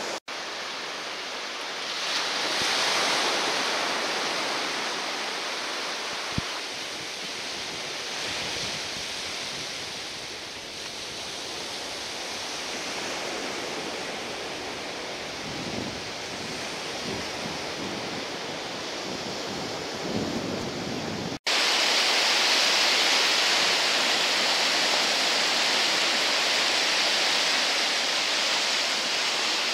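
Sea surf washing onto a sandy beach, a steady hiss of breaking water. About two-thirds of the way through it becomes louder and hissier, close to the breaking waves.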